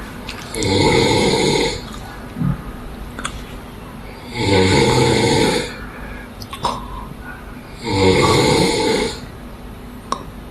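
A sleeping man snoring loudly: three long snores, each lasting about a second, coming about every three and a half seconds, with quieter breathing between them.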